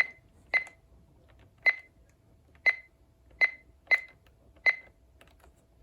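About seven short, high electronic beeps at uneven intervals from an Oregon Scientific WR606 weather radio. Each beep is the key-press confirmation as its buttons are pressed to step through the settings menu.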